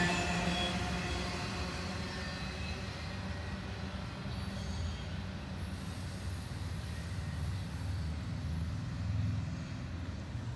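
The last cars of an intermodal freight train, trailer-carrying flatcars, rolling past on the rails with a faint wheel squeal. The sound fades over the first couple of seconds to a low, steady rumble as the train moves away.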